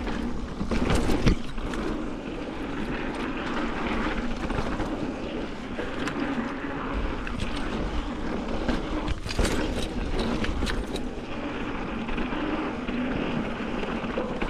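Mountain bike riding along a dirt trail: steady tyre and wind noise, with the bike knocking and rattling over bumps a few times, most sharply about a second in and again past the middle.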